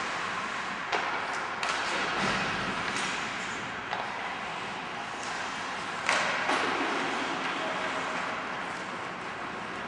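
Ice hockey play in a rink: a run of sharp clacks and knocks from sticks, puck and boards, the loudest about six seconds in, over a steady noisy hiss from the ice and the hall.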